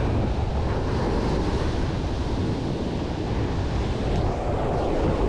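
Surf breaking on the beach, with wind buffeting the microphone in a steady rush.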